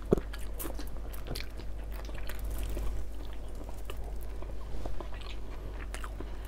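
Chewing and biting of food eaten by hand, with many scattered short clicks and one sharper click just at the start.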